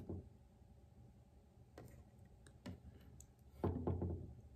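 A few faint, sharp plastic clicks as small LEGO pieces and minifigure parts are handled and fitted together, with a short low sound a little before the end.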